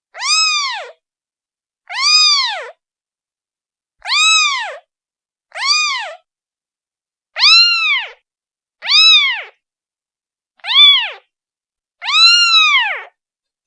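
Newborn kitten, a day old, meowing to call its mother: eight short, high-pitched meows, each rising then falling in pitch, one every second or two with silence between.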